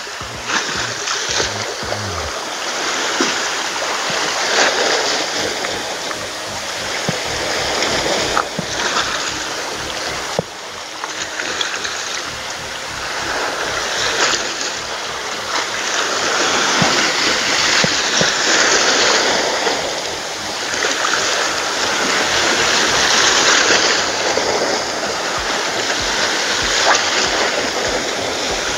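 Small sea waves washing over a rocky shore, each surge swelling and falling back in a loud splashing hiss every few seconds.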